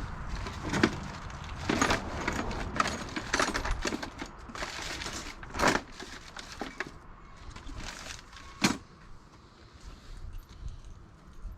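Small bicycle parts and tools being handled and rummaged through: irregular clicks, light knocks and rustling, busiest in the first seven seconds and sparser after, with a sharp knock a little before nine seconds.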